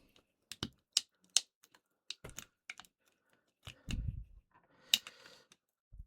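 Sharp, irregular plastic clicks and taps of a pry tool working against a headset earcup's plastic housing, levering at a battery glued in place, with a dull low thump about four seconds in.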